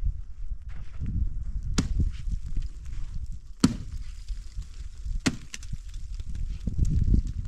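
Three sharp chopping strikes of an axe into wood, spaced about a second and a half to two seconds apart, over a low rumble.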